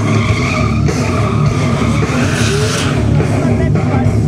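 Stunt motorcycle engine revving hard as the rider slides and spins the bike on asphalt, with the tyres skidding and squealing.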